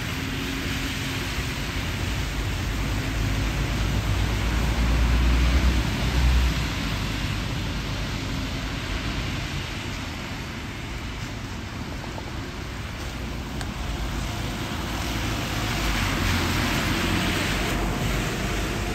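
A bus passing on a rain-wet road: low engine rumble builds to its loudest about six seconds in and then fades, over a steady hiss of tyres on wet tarmac and rain. A second, hissier swell comes near the end.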